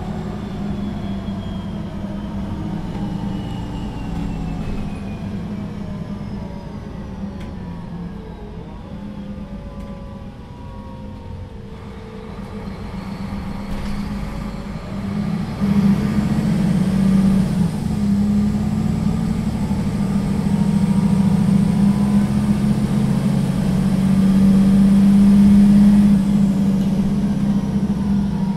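Solaris Urbino III 12 city bus heard from inside while driving. Its engine winds down over the first half, then about halfway through a kickdown brings it in suddenly under full acceleration, louder, with a rising whine. It eases off near the end.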